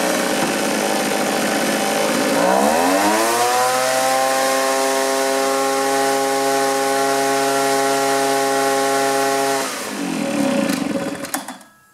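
Homelite two-stroke backpack leaf blower engine running, its pitch shifting over about a second and a half to a steady even hum. About ten seconds in it is shut off and spins down to silence.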